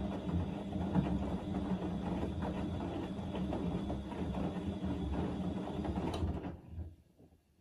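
Siemens Extraklasse XL110A front-loading washing machine tumbling laundry in the main wash: steady drum-motor hum with water and wet clothes sloshing in the drum. A click a little after six seconds in, then the drum winds down and stops, a pause between tumbles.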